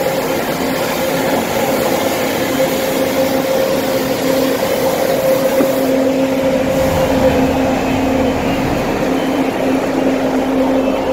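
Steady drone of street traffic with a constant low-pitched engine hum.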